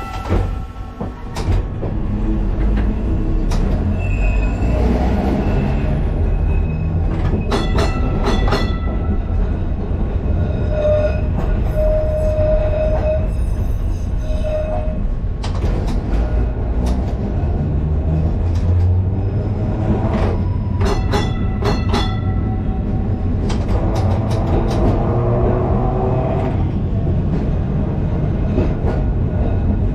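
Restored 1930s Liverpool bogie tram No.762 running along the track. There is a steady low rumble of wheels and running gear with clusters of clanks and rattles, a brief squeal near the middle, and a whine rising in pitch about three quarters of the way through.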